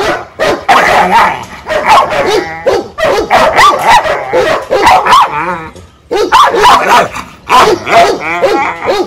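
A frightened pit bull barking loudly and repeatedly, in quick runs with a short pause about two-thirds of the way through. It is fear-driven defensive aggression at a person reaching in to handle it.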